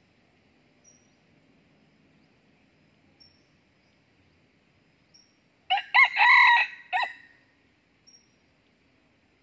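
A red junglefowl cock crows once, about six seconds in: a short crow of about a second and a half in three parts.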